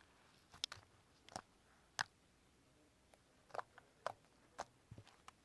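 Faint, sharp clicks and crunches, about a dozen at irregular intervals, the loudest about two seconds in.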